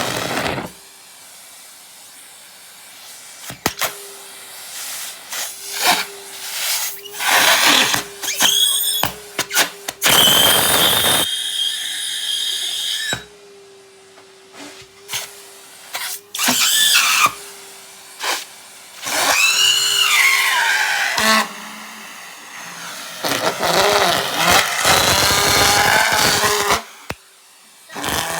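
Henry vacuum cleaner sucking at pieces of rubber glove. The motor runs steadily while the rubber blocks and frees the nozzle, giving repeated loud rushes and squealing whistles, some gliding in pitch, with quieter spells between.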